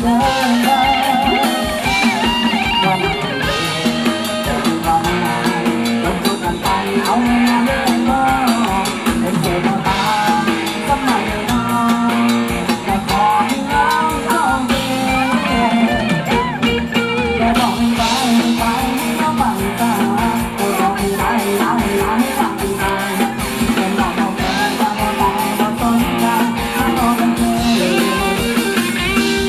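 Live band playing Thai ramwong dance music on electric guitars, bass and drum kit, with a singer, amplified through a PA.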